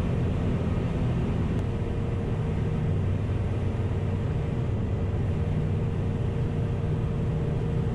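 Steady drone of a Sling 4's Rotax 914 turbocharged four-cylinder boxer engine and propeller, running at reduced power in the descent.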